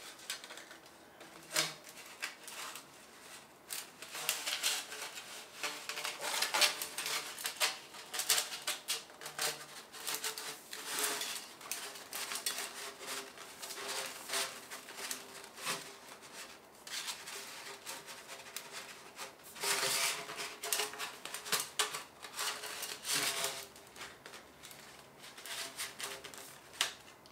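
Thin titanium chimney sections of a portable wood stove clinking, knocking and scraping against each other as they are handled and fitted together, in irregular clinks with a faint metallic ring.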